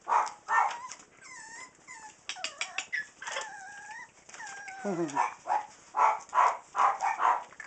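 Miniature Australian Shepherd puppies whining and yapping: several high drawn-out whines in the first half, then a run of about five short, loud yaps near the end.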